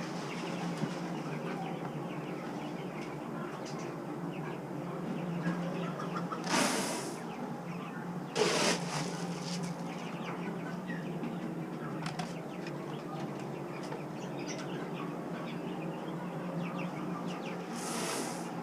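A barn flock of chickens and young turkeys chirping and clucking without a break, with three short loud bursts of wing flapping: two close together about a third of the way in and one near the end.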